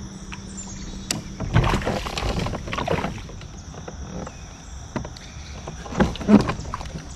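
A hooked largemouth bass splashing at the side of a plastic pedal kayak as it is brought in and lifted aboard by the lip, with scattered knocks and rattles of gear on the hull. The splashing comes in irregular bursts, the heaviest a second or two in and another near the end.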